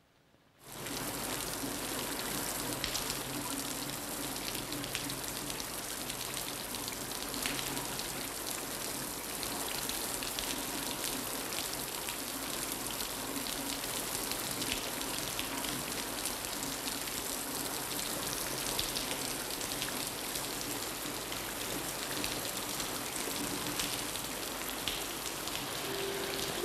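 Steady rain falling, starting suddenly about half a second in, with faint low steady tones underneath.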